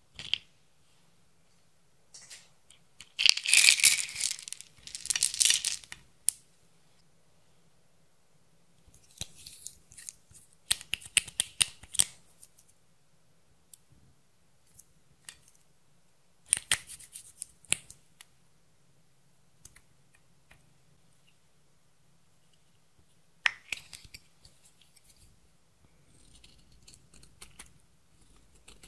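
Close-up ASMR handling sounds over a glass baking dish: several separate bursts of crisp clicking, rattling and crackling as small plastic beads and other items are set into the dish. The loudest burst comes a few seconds in. Near the end, a faint scraping as a metal tool digs red pressed powder out of a makeup compact.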